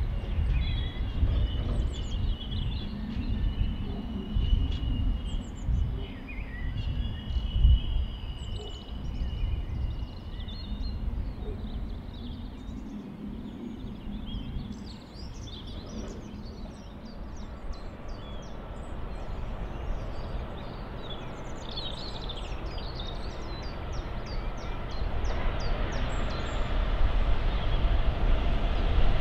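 A train of covered hopper wagons rumbling away into the distance, with birds chirping as it fades. Near the end a Class 66 diesel locomotive's engine grows louder as it approaches.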